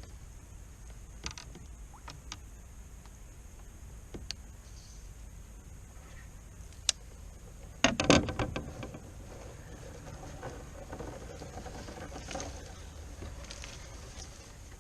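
Handling and unhooking a small pike: scattered clicks and rattles of fishing tackle, with one loud scuffling knock about eight seconds in.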